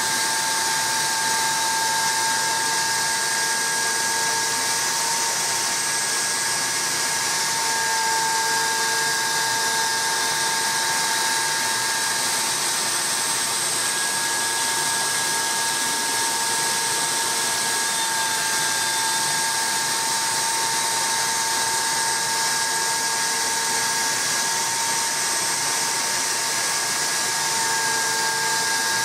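CNC router spindle running steadily with a high-pitched whine while its ball-nose router bit mills the face of a wooden 1911 pistol grip blank, with a constant hiss from the cut.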